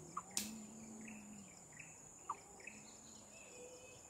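Insects giving a steady high-pitched drone, with a sharp click about half a second in and a few short chirps.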